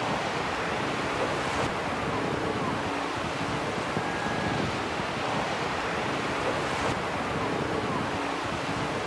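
Steady rushing wind and surf noise, with faint short tones recurring every few seconds.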